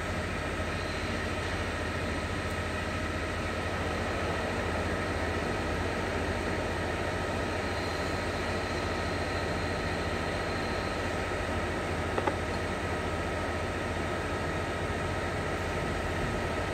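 Steady machine-like hum and hiss with two thin, steady whistling tones over it, unchanging throughout; a single sharp click about twelve seconds in.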